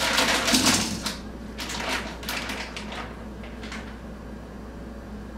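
Plastic bag rustling and crinkling as it is handled, loudest in the first second, then scattered crackles for a few seconds more.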